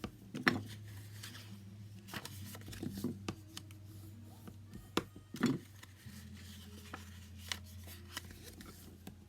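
Scored paper strip being folded and creased down by hand: scattered light taps and rubs of paper against the table, over a steady low hum.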